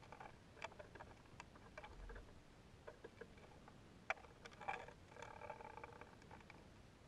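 Near silence with faint scattered clicks and ticks, the sharpest about four seconds in, and a faint hum for about a second just after five seconds.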